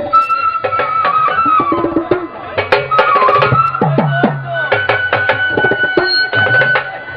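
Live Bengali folk music led by a dhol, a double-headed barrel drum struck by hand in a fast, busy rhythm with a few sliding bass tones. A high melody instrument holds long, slightly bending notes above it.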